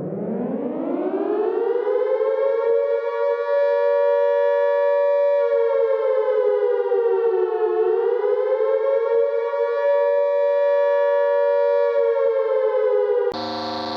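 Civil defense–style siren winding up from a low pitch to a steady wail over about three seconds. It holds at two close pitches, dips and rises again once about halfway through, and near the end cuts over abruptly to a different steady alarm tone.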